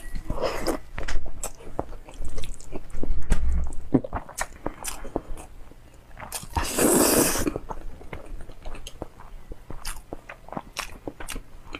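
Close-miked eating of spicy instant noodles: wet chewing and mouth clicks throughout, with one long noodle slurp about seven seconds in.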